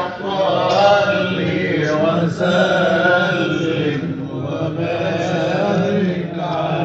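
Male voices chanting an ibtihal, an Egyptian Islamic devotional hymn, in drawn-out melismatic phrases whose pitch waves up and down, with a brief break about two seconds in.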